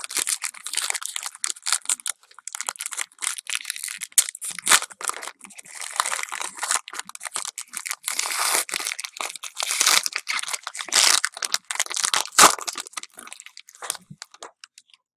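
Foil wrapper of a baseball card pack crinkling and crackling as hands work it and tear it open, with one sharper snap about twelve seconds in.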